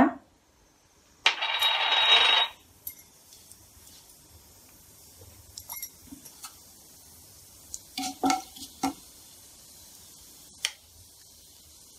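Mustard and cumin seeds hitting hot oil in a nonstick kadai: a loud sizzle for about a second, settling into a faint steady sizzle with a few scattered ticks, a cluster of them near the end.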